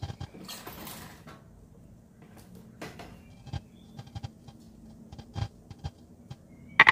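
Plastic front cover of a Reiwa window air conditioner being handled and fitted against the unit: scattered clicks and light knocks, with a brief scraping rustle about half a second in and a louder knock near the end.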